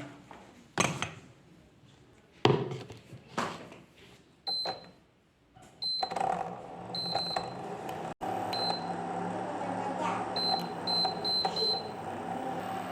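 A few knocks as the pressure cooker is set down, then an induction cooktop's touch buttons beeping about eight times as it is switched on and set, and the cooktop running with a steady electrical hum.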